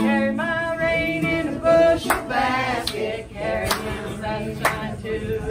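Women's voices singing a song together, with three sharp hits spread through the second half.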